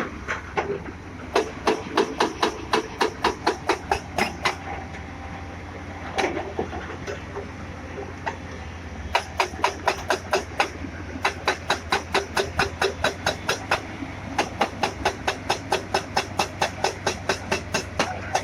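JCB excavator running steadily while a rapid, regular series of sharp metallic strikes, about four a second, comes in runs of a few seconds with short pauses between them.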